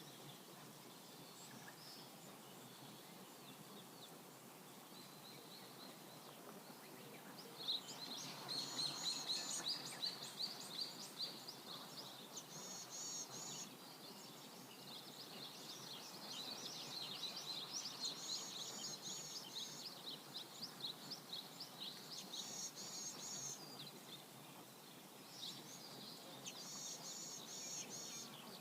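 Birds chirping and calling outdoors over a faint steady background hiss. The calls are sparse at first, then come thick and fast in repeated high clusters from about eight seconds in.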